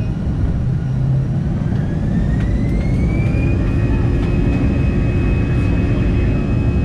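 CFM56 turbofan engines of an Airbus A320, heard from the cabin over the wing: a whine rises in pitch over the first three or so seconds as the engines spool up, then holds steady over a deep rumble.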